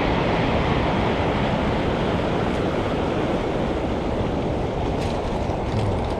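Steady rush of heavy surf breaking and washing over a pebble beach.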